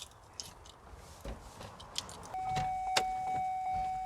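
Small clicks and key handling, then about two seconds in a steady electronic chime tone from the truck's dashboard begins and slowly fades: the warning chime as the key goes into the ignition.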